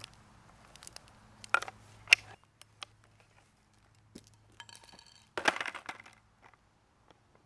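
Sharp metallic clicks and clinks as a skateboard's trucks are handled and adjusted, the two loudest a half second apart about one and a half to two seconds in. A short metallic ring follows, then a clatter about five and a half seconds in as the board is set down on asphalt.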